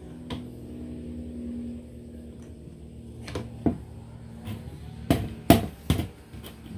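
Sharp knocks and clicks of metal parts as a hedge trimmer attachment is worked onto the aluminium drive shaft and its gear coupling by hand, about five in the second half, over a faint steady hum.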